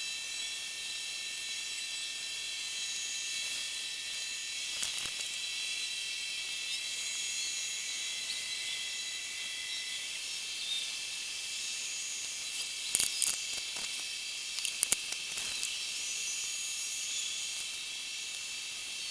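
Hydrochloric acid fizzing steadily as it dissolves heavy calcium scale inside a salt-chlorinator cell. A few sharp clicks come about 13 and 15 seconds in.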